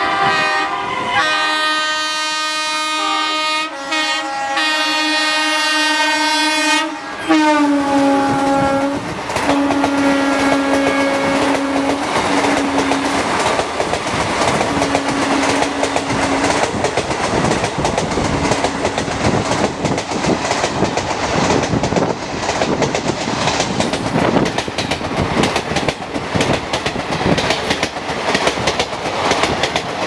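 Electric locomotive's multi-tone air horn sounding a long chord as the express train approaches, dropping in pitch as the locomotive passes about seven seconds in, then a string of shorter honks. After that the coaches run past with a fast clickety-clack of wheels over the rail joints.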